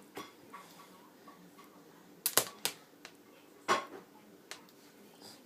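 A few short, sharp clicks and taps of small hard objects: a quick cluster of three a little past two seconds in, a stronger one near the middle and a faint one later.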